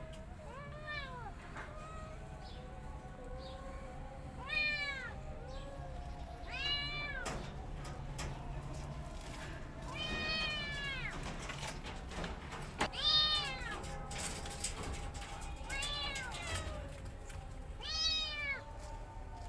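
A cat meowing again and again: about seven separate meows, each about a second long and rising then falling in pitch, a couple of seconds apart, over a steady low hum.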